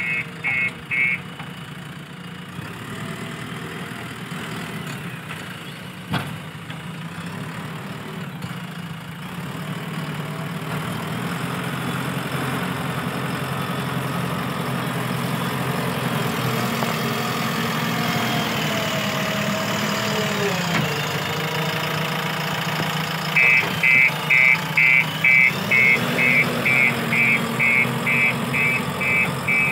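JCB 3DX backhoe loader's diesel engine running, building up in revs through the middle and dropping sharply about twenty seconds in. Near the end the reversing alarm sounds, a steady series of short high beeps at about two and a half a second, over the engine.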